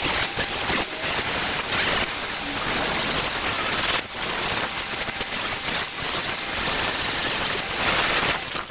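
Angle grinder with a flap disc grinding sheet metal in a steady, loud hiss, dipping briefly a couple of times and cutting out suddenly at the very end.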